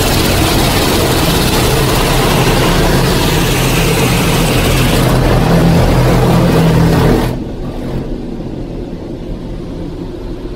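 Automatic car wash machinery, heard from inside the car: a loud, steady rushing noise with a low hum, which cuts off abruptly about seven seconds in and leaves a quieter steady hum.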